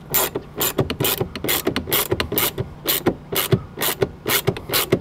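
Hand ratchet with a 10 mm socket being worked back and forth to tighten the door-panel bolt behind the inside door handle. The pawl clicks in quick, even bursts, about four a second.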